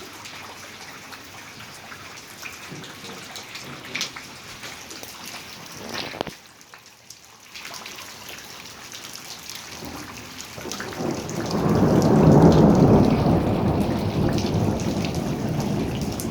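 Steady rain falling. About eleven seconds in, a loud, low rolling thunderclap builds, peaks and slowly fades.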